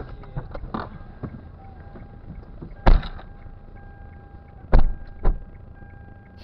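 Inside a car: low steady engine and road rumble with scattered light knocks and three heavy thumps, one about three seconds in and two close together near the end.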